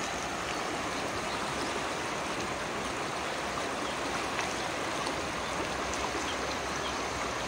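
River water running, a steady even rush with no change through the stretch.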